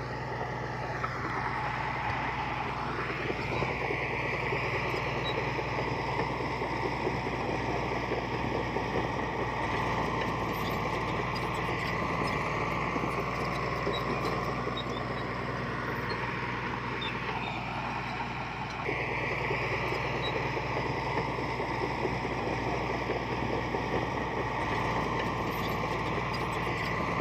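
Diesel engine of heavy earth-moving machinery running steadily, its pitch rising and falling a few times as it works. The sound changes abruptly about nineteen seconds in.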